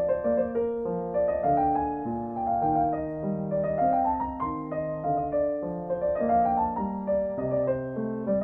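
Background piano music: a flowing run of single notes over held lower notes, with phrases that climb in pitch again and again.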